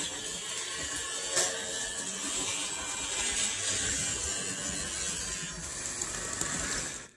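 Walthers Conrail model diesel locomotive running on its track, a steady whir from its motor and wheels with a click about a second and a half in. The whir cuts off suddenly about seven seconds in as the locomotive stops. It is kind of loud, which the owner thinks may need oiling.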